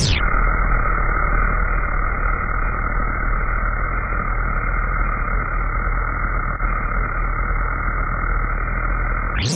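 Twin brass safety valves on a model Jinty locomotive's boiler blowing off steam: a loud, steady, muffled hiss as the valves lift at their set pressure, the sign that the boiler is passing its steam test.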